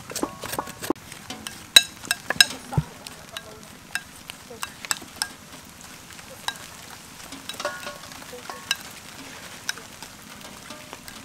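Scattered sharp knife clicks and taps of hand food preparation: a blade working fresh lemongrass over a steel bowl, then cutting limes and chillies on a wooden chopping board. The taps come at irregular intervals and are loudest in the first few seconds.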